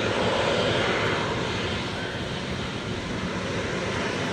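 Boeing 777-200 airliner's jet engines, heard as a steady rush of noise with a faint low hum underneath, a little louder in the first second.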